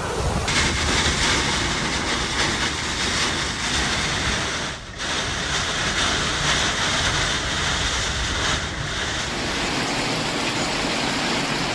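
Storm noise: a steady, dense rushing of wind and water. It changes character about half a second in and drops out for a moment about five seconds in.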